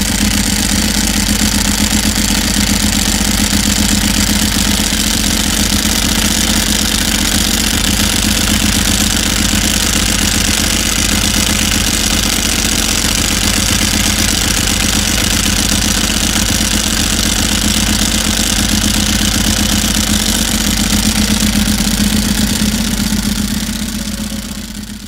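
Ducati 996R's 90-degree V-twin engine idling steadily, fading out near the end.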